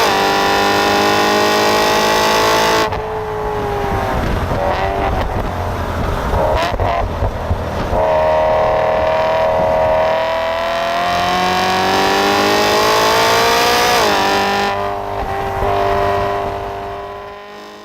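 Supercharged BMW E92 M3's V8 engine at full throttle, its pitch climbing steadily through a gear before cutting off sharply about three seconds in. A rougher off-throttle stretch follows with a few sharp cracks, then the engine pulls up through another gear and lifts again near the end, fading out.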